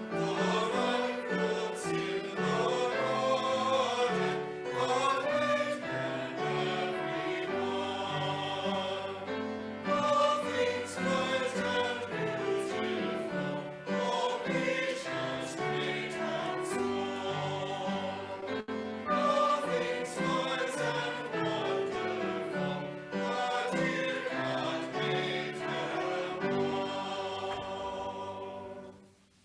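A choir singing with full, sustained chords, the music dying away just before the end.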